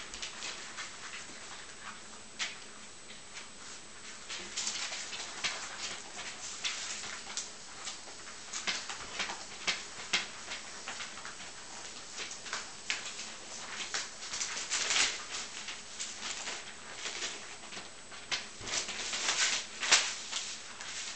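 Irregular light clicks, scuffs and rustles of a young puppy being handled and posed on a grooming table, with its feet shifting on the tabletop.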